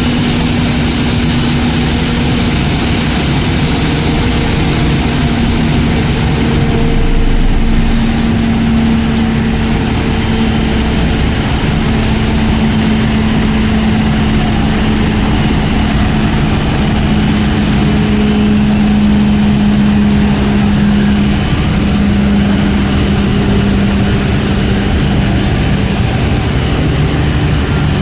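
Glass tempering furnace line running: a steady, loud industrial machine drone with a held low hum whose pitch shifts slightly now and then. The hiss on top drops away about seven seconds in.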